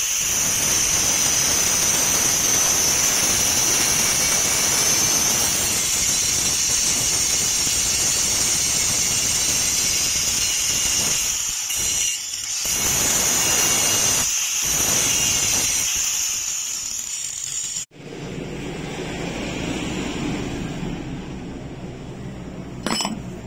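Angle grinder's abrasive disc cutting into the steel of an adjustable wrench held in a vise: a steady high whine with hiss, easing off briefly twice as the disc is lifted. It stops abruptly about three-quarters of the way through, and a quieter, lower sound follows.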